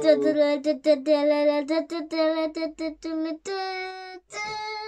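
A child's voice singing a wordless fanfare: a quick run of short sung notes, then two longer held notes near the end.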